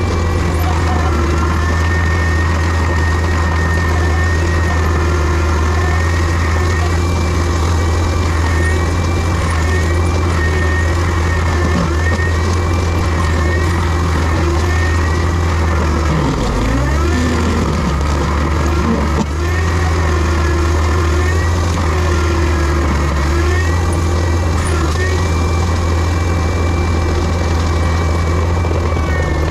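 Diesel engine of heavy land-clearing machinery running steadily, with a high whine above it that wavers in pitch. About halfway through, the engine note dips briefly, as under load, then comes back up.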